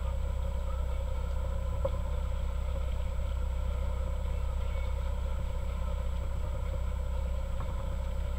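Boat motor running steadily at low speed: a constant low rumble with a steady hum.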